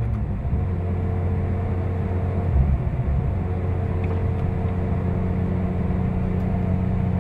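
Car engine running steadily under way, heard from inside the cabin as an even drone with road and tyre noise; the note shifts slightly about two and a half seconds in.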